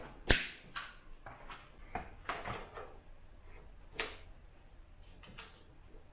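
A sharp click, then a string of lighter clicks and knocks spaced about a second apart, from small parts being handled and fitted at a motorcycle's handlebar.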